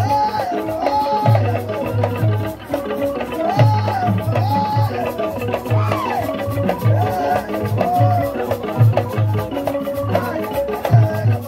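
Live traditional drum music: deep drums beating a steady, syncopated rhythm with rattles shaking over it and a melody line, most like singing, rising and falling above.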